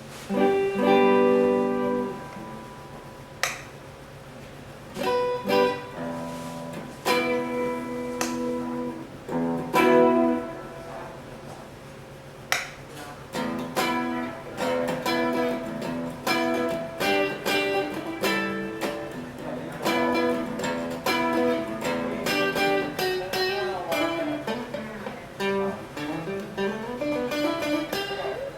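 PRS SE Custom electric guitar played on its neck pickup (85/15 S) through a Mesa Rectoverb 25 amp. A few ringing chords are let sustain in the first ten seconds, then picked single-note lines and arpeggios follow, with sliding notes near the end.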